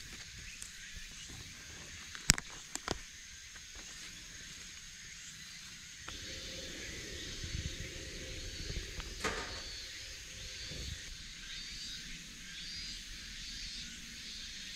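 A dry wooden stick snapping with a sharp crack about two seconds in, broken underfoot, followed by two smaller cracks. Later come rougher rustling and knocking of sticks being handled on leaf litter.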